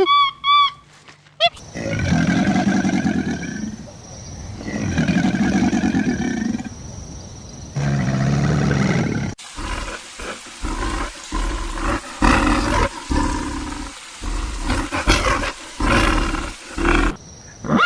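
Large animal calling: three long, drawn-out calls, then, after an abrupt cut about nine seconds in, a rapid series of short, deep grunting calls.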